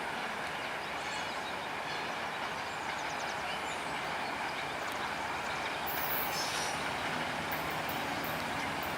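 Amtrak passenger train passing on the rails: a steady rolling rumble and rush of the train, with brief high-pitched wheel squeals about six seconds in and again near the end.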